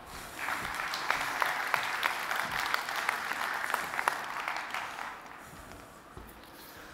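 Audience applauding, starting about half a second in and dying away after about five seconds.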